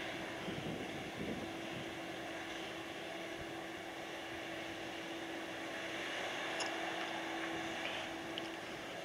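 Distant, steady mechanical drone of a cargo ferry's crane machinery hoisting a truck off the deck, with a steady hum tone that sets in about a second and a half in. A couple of faint clicks come near the end.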